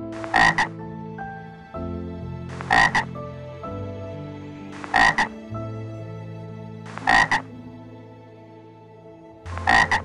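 A frog croaking five times, about every two and a half seconds, each call a quick double croak.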